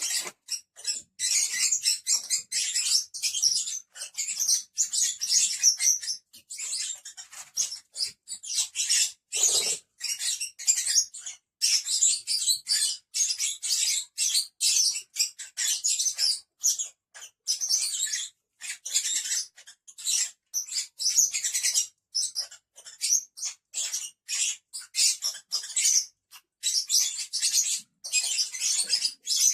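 A group of lovebirds chattering, a dense stream of rapid, high-pitched chirps and squeaks with only brief pauses.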